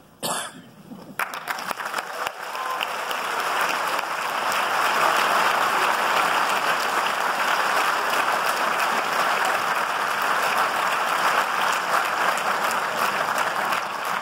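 Audience applauding: a brief sharp sound just after the start, then the clapping swells over a few seconds and holds steady.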